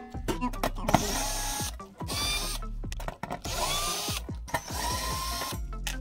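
Cordless drill/driver backing out the screws of an aluminium ECU case lid, its motor running in several short bursts with a whine.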